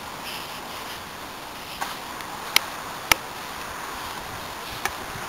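Steady outdoor hiss of wind and open air, with four sharp clicks or taps spread through it. The loudest click comes about three seconds in.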